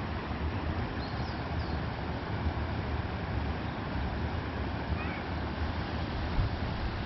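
Bicycle tyres rolling over light gravel: a steady rough noise, heaviest in the low end, with a few faint high chirps about a second in and again near five seconds.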